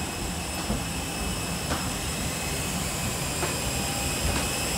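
Cabin of a parked Airbus A321-231 airliner: steady rumble and hiss of the cabin air with several thin high whines, and a few faint clicks about two, three and a half and four and a half seconds in.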